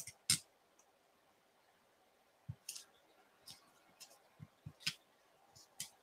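Hands handling a paper card and twine on a craft mat: two sharp clicks at the start, then scattered faint taps and rustles of paper.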